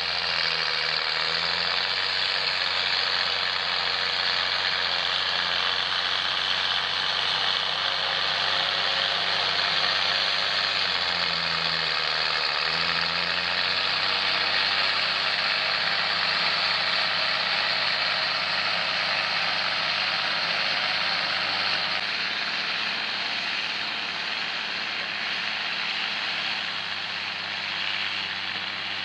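John Deere tractor engine running steadily while pulling a plough, its note sagging briefly under load a couple of times.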